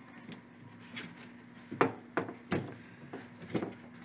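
Rigid yellow plastic egg-turner trays of a chicken incubator being handled and set in place: about half a dozen light knocks and clicks, the loudest a little under two seconds in, over a faint low hum.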